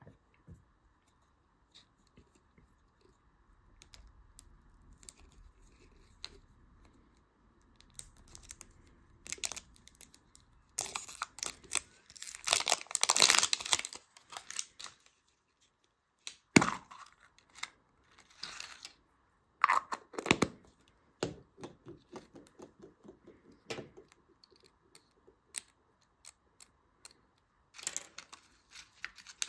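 Thin plastic shrink-wrap sleeve being torn and peeled off a plastic surprise-egg capsule, crinkling and crackling in irregular bursts, loudest about halfway through. Small plastic clicks in between, and a plastic candy packet crinkling near the end.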